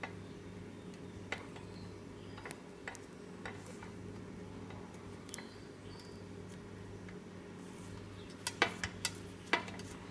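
Faint clicks and handling noise as fingers work paracord ends through a small metal bead, a few scattered clicks and then a quick run of sharper ones near the end, over a steady low hum.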